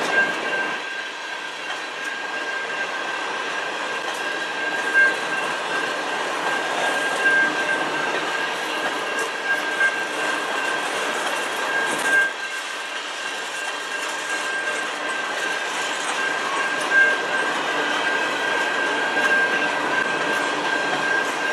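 Freight train of covered hopper cars rolling steadily past. There is a continuous rumble and clatter of steel wheels on rail, a few irregular louder knocks, and a steady high-pitched tone over it all.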